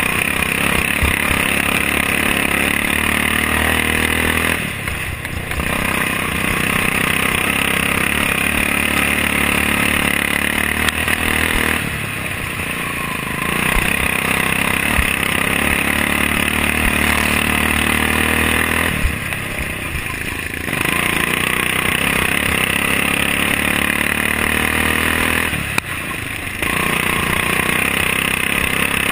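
Racing lawn mower's Briggs & Stratton Vanguard engine running hard at full throttle. It drops off briefly four times, about every seven seconds, as it eases for the turns, then revs back up.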